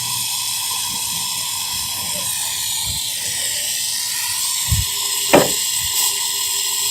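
Gas brazing torch flame hissing steadily while copper refrigeration pipe joints on a compressor are brazed, with a couple of small knocks about five seconds in.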